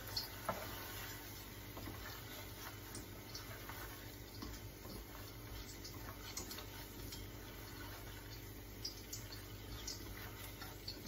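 A spatula stirring thick tomato-and-spice masala gravy cooking in a pot, with faint sizzling and a few light scrapes and taps of the spatula against the pot.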